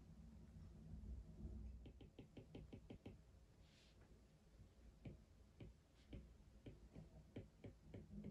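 Light clicks and taps: a quick run of about eight a couple of seconds in, a short hiss near the middle, then single taps at uneven spacing of about half a second.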